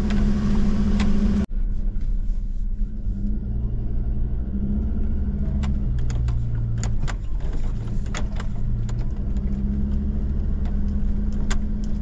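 Four-wheel drive's engine running steadily at low speed on a rough dirt track, heard from inside the cabin, its note shifting a little as it drives. From about halfway, short clicks and rattles come in as the vehicle jolts over the uneven surface.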